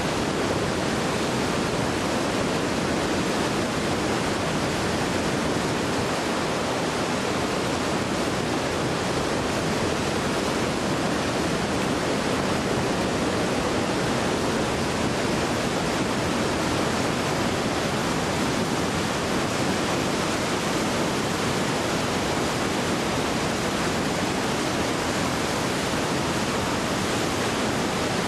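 Whitewater rapids rushing steadily over boulders, a constant, even rush of churning river water.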